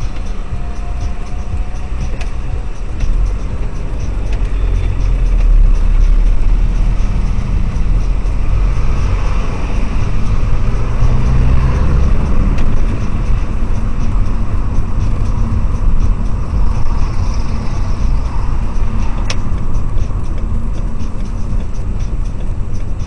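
Car's engine and road noise heard from inside the cabin through a dashcam's built-in microphone, a steady low rumble that grows louder a few seconds in as the car moves off in traffic.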